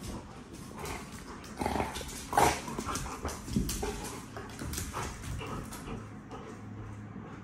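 A shepherd-type dog and a yellow Labrador play-fighting: irregular short growls and grumbles with scuffling and clicks of paws on the hard floor.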